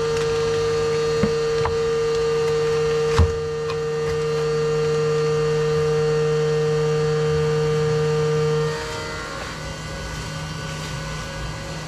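Milling machine running with a steady pitched hum. About nine seconds in, its tone changes and it gets quieter. A few light knocks come from a cardboard shipping box being handled, the sharpest about three seconds in.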